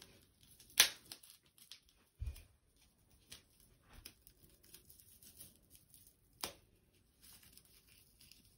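Fingers scraping and picking at a bath bomb, with faint crinkling and scratching throughout, a sharp click about a second in, a dull thump a little after two seconds, and another click near the end.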